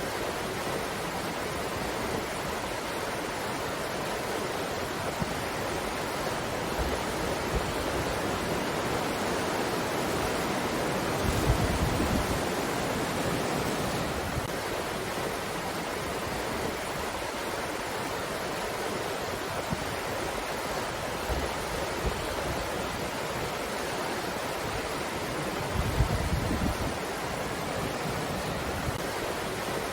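Wind blowing steadily, an even rushing noise, with two stronger gusts that bring a brief low rumble, one before the middle and one near the end.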